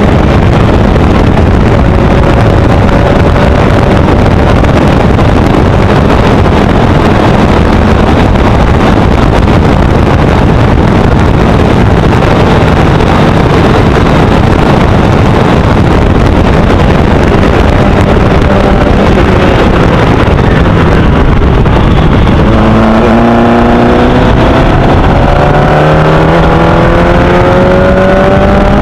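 Formula Easter single-seater race car's engine running at high revs under heavy wind rush on the onboard microphone. The engine note sinks as the car slows for a bend about twenty seconds in, then climbs in pitch as it accelerates out, with a gear change partway through the climb.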